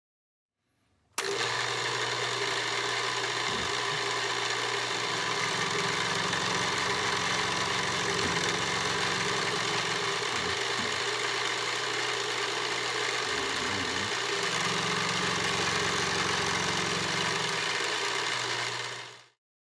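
A small bench milling machine running, its cutter milling a brass casting: a steady machine hum with a bright hiss of cutting over it. It starts abruptly about a second in and fades out just before the end.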